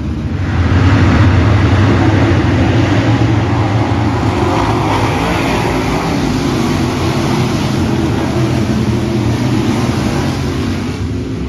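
A pack of dirt late model race cars' V8 engines running at full throttle as the field passes close together. The sound rises sharply about half a second in, holds loud, and eases off near the end.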